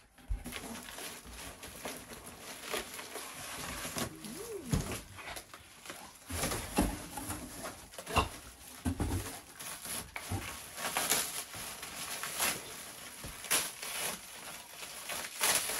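Crumpled brown kraft packing paper and cardboard rustling and crackling as they are pulled from a shipping box, in irregular handfuls.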